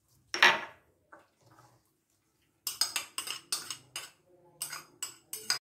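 A kitchen utensil knocking and scraping against a glass mixing bowl as diced meat is tipped onto the shredded vegetable filling. There is one loud clatter about half a second in, then a quick run of about eight sharp knocks over the last three seconds.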